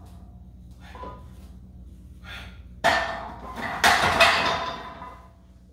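Short, sharp breaths about every second and a half as a loaded barbell is bench-pressed. Almost 3 s in, the barbell is racked with a loud metal clang and a couple more clanks, and the bar and weight plates ring on and fade.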